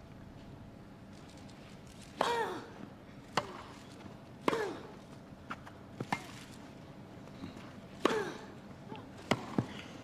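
Tennis rally on a grass court: rackets striking the ball and the ball bouncing, about seven sharp pops spaced a second or so apart. Three of the strokes carry a player's short grunt that falls in pitch.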